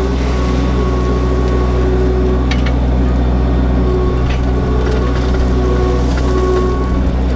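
Compact tractor's diesel engine running steadily under light load as it drags a rear landscape rake through gravel, with a couple of faint clicks midway.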